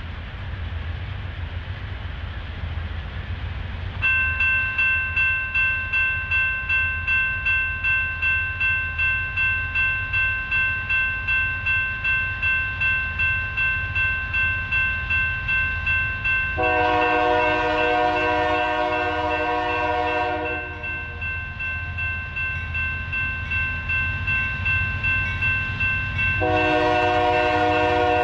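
A grade-crossing warning bell starts ringing about four seconds in, pulsing about twice a second, as the crossing activates for an approaching freight train. The train's diesel locomotive horn sounds a long chord blast about sixteen seconds in, then starts another near the end.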